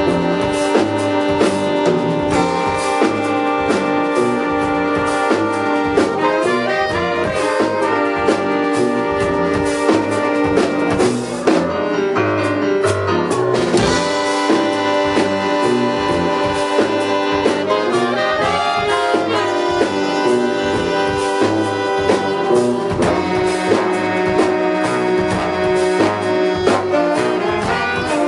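Live jazz big band playing a piece in 5/4: trumpets, trombones and saxophones holding and moving through layered chords over drums and bass.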